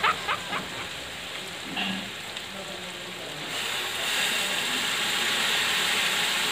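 Ground pork sizzling in a hot aluminium wok, with a few clicks right at the start. About three and a half seconds in, shrimp-head broth is poured into the pan and the sizzle swells into a louder, steady hiss.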